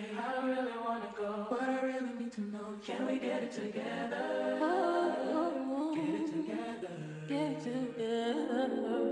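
Background music: layered vocal harmonies holding long, sustained notes.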